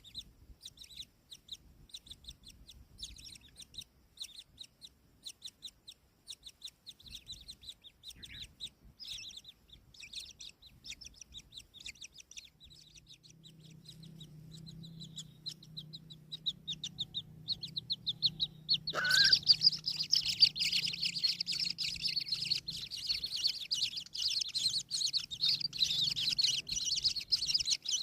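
Kingfisher chicks calling: a run of short, high chirps, then about two-thirds of the way through a loud, dense chorus of begging calls breaks out and keeps going.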